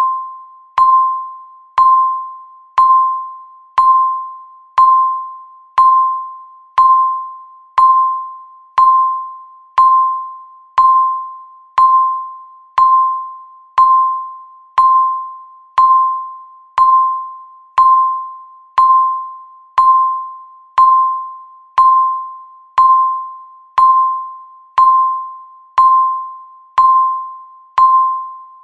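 Countdown timer beeping once a second: a short electronic tone near 1 kHz that starts sharply and fades before the next, ticking off the seconds as the timer counts toward zero.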